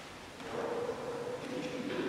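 Mixed choir singing softly: a held note comes in about half a second in, and lower voices join near the end.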